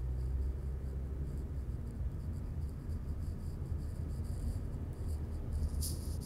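Low, steady engine and road rumble heard from inside a car's cabin as it creeps past idling school buses, with a faint high-pitched chirring that comes and goes and is brightest near the end.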